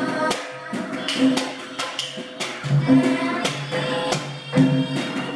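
Javanese gamelan playing a palaran accompaniment, struck metal keyed instruments ringing on a steady beat with drum strokes, while a girl sings a solo Javanese tembang line into a microphone.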